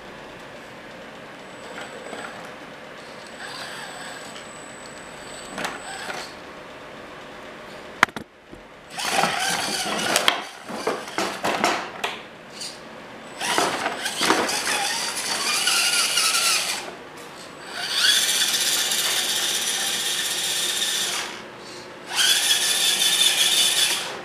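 Everest 10 1/10-scale RC crawler's electric motor and gears whining in short throttle bursts that rise and fall in pitch, after a quiet start with a single sharp click. In the second half it runs in longer, steady bursts at full speed.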